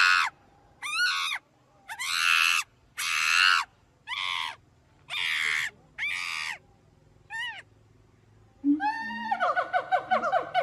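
Macaque screams: about eight loud, harsh cries of half a second each, one after another. Near the end they give way to a fast run of short, squeaky calls.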